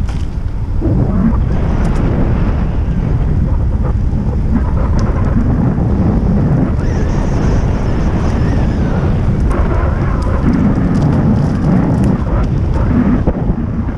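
Wind buffeting the microphone on a moving bicycle: a loud, steady low rumble that flutters in level, with a few faint clicks.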